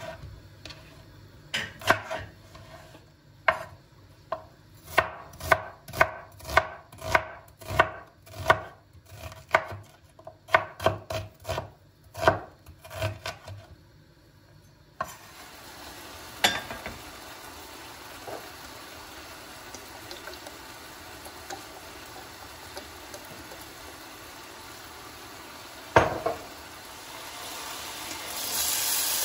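Knife chopping food on a cutting board in steady strokes, about two a second. About halfway through the chopping stops and gives way to a steady hiss with a couple of single knocks, the hiss growing louder near the end.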